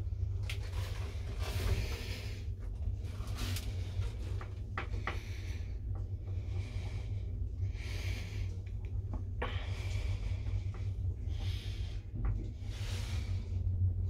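1960s traction elevator running: a steady low rumble with scattered clicks and knocks from the car and its equipment, and a few soft hisses.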